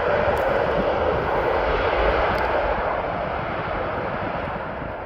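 Jet engines of a landing Airbus A321 airliner, a broad steady rush of engine noise that fades slowly over the last couple of seconds as the plane moves away.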